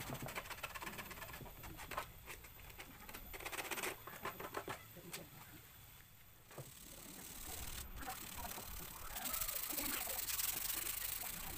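Hands working on a bare plywood speaker box: scattered taps and scrapes for the first few seconds, then a steady rubbing hiss near the end.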